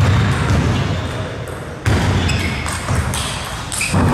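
Table tennis ball in play: light clicks off bats and table from about halfway through, over three dull thuds roughly two seconds apart.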